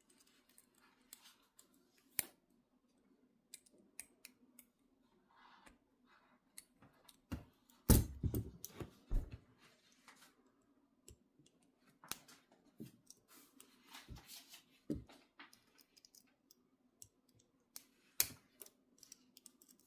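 Metal clicks and small scrapes from a bobby pin worked in the lock of Peerless 700C hinged handcuffs, irregular and sparse, with a louder knock about eight seconds in.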